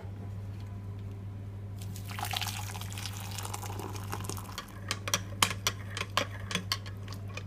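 Boiling water poured over a vegetable stock cube, a steady splashing hiss for about two and a half seconds, followed by a run of sharp clinks as the stock is stirred.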